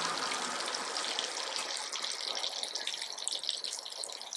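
Slices of sucuk sizzling and crackling in their own fat in an enamel pot on a portable gas cartridge stove.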